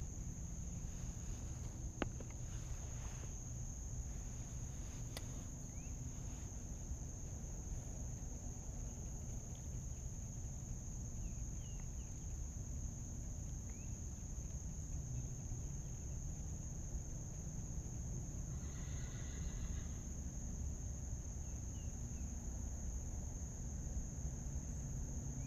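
Insects singing in one steady, high-pitched drone over a low, even rumble, with a click about two seconds in, a few faint short chirps, and a brief harsher call about three-quarters of the way through.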